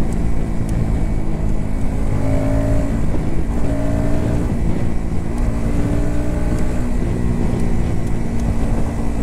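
Bajaj Pulsar NS160's single-cylinder four-stroke engine running at a steady cruise, heard from on the bike with wind noise over the microphone.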